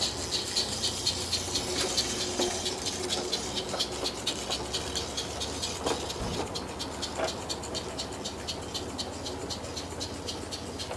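A 16mm-scale garden railway locomotive hauling a train of wagons, giving a quick, even beat of about four or five a second that grows fainter as the train draws away, with a few faint knocks along the way.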